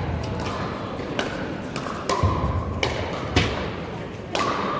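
Pickleball paddles hitting a plastic ball in a rally: about six sharp pops, roughly one a second, each with a brief hollow ring.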